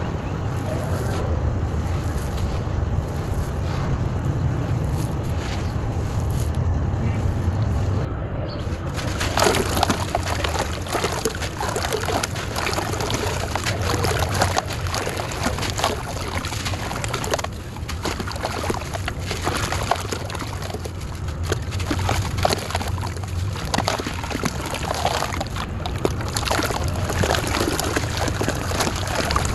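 Hands scooping and stirring dry, crumbly soil, a low rustling. About eight seconds in, this changes to gritty chunks of dry clay being crushed in the hands and falling as crumbs and dust into a tub of water, a dense crackling and splashing patter.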